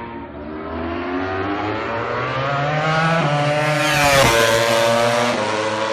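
Aprilia RS-GP MotoGP bike's V4 engine at full throttle, its note climbing with one upshift about three seconds in, then sweeping past about four seconds in and dropping in pitch as it pulls away.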